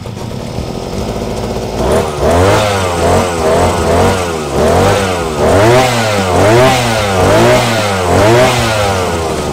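Backpack brush cutter engine idling, then revved up and down repeatedly, about once a second, before dropping back to idle near the end. The throttle is being blipped to test a freshly fitted throttle cable, and the engine runs smoothly.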